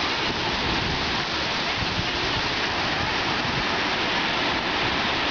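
Sea surf washing in, a steady hiss of small breaking waves.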